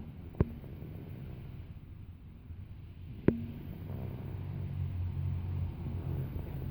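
Low, rumbling snoring, swelling into a long snore from about four seconds in. Two sharp clicks, about three seconds apart, are the loudest sounds.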